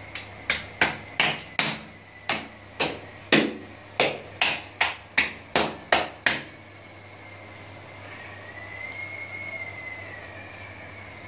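Hand slapping the belly of a hanging, skinned sheep carcass: about fifteen sharp slaps over six seconds, then they stop. The rumen inside has been filled with water from a hose to flush out its contents.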